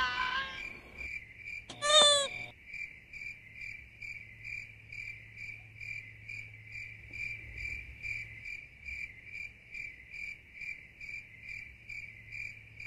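Crickets chirping steadily, about two or three chirps a second. About two seconds in there is a short, wavering, high-pitched cry.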